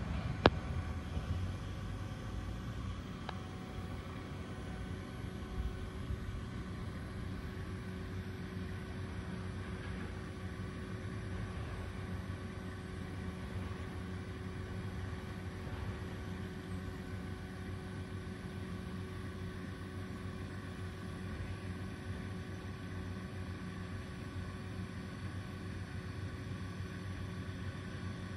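OMME 21 m trailer lift's motor and hydraulic pump running steadily as the telescopic boom raises and extends the basket. There is a sharp click about half a second in and a fainter one a few seconds later.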